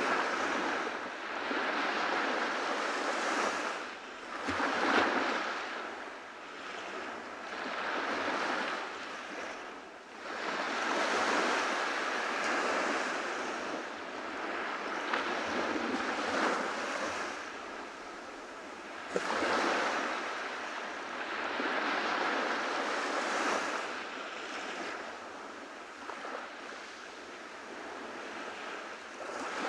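Ocean surf washing onto a beach. Each wave swells and fades away every few seconds.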